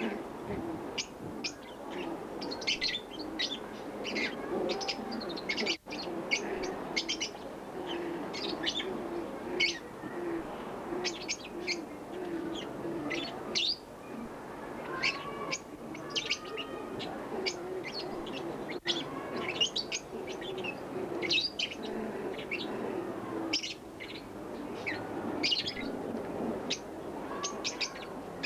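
Many small birds chirping continuously in quick high notes, with a low, repeated cooing underneath.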